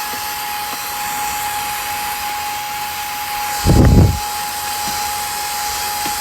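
Handheld cordless car vacuum cleaner running steadily: a steady high whine over the rush of its suction. A brief low thump comes about three and a half seconds in.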